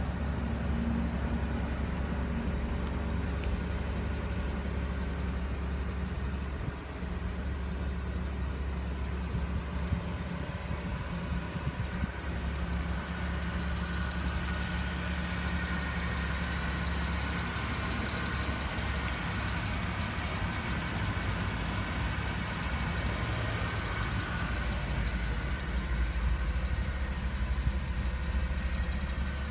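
Suzuki Carry kei truck's engine idling steadily, a continuous low hum.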